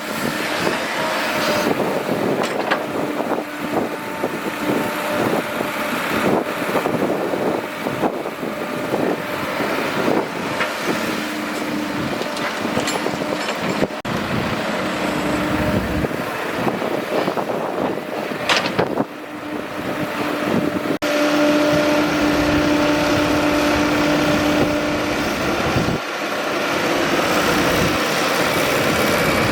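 Excavator's diesel engine running steadily with scattered knocks and scrapes, getting louder about two-thirds of the way through.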